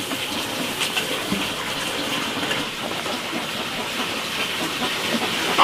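Water running steadily, an even rushing noise with a few faint knocks.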